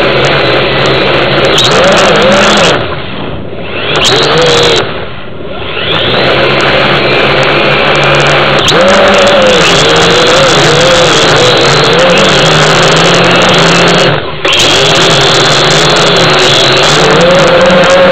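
Quadrone X HD quadcopter's electric motors and propellers buzzing, heard through its own onboard camera, the pitch wavering up and down with the throttle. The buzz drops off twice a few seconds in and once more, briefly, later on.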